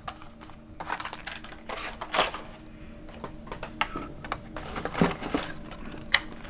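Blister-packed Hot Wheels die-cast cars being handled and pulled from their cardboard case: irregular light clicks and rustles of plastic packaging and card.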